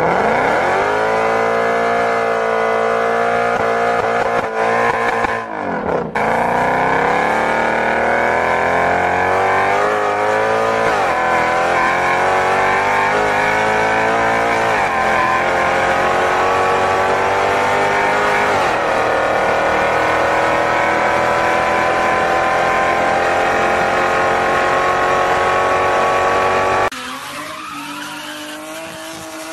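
A car engine running at high revs under hard acceleration, its pitch climbing steadily and dropping back at each upshift, four or five times through the gears. Near the end it cuts suddenly to a quieter, steadier sound.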